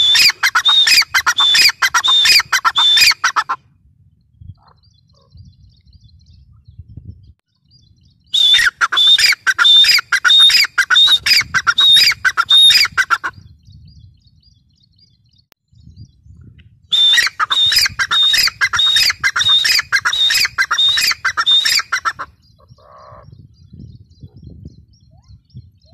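Grey francolin calling: three bouts of a rapid run of repeated loud call notes, with pauses of about five seconds between them.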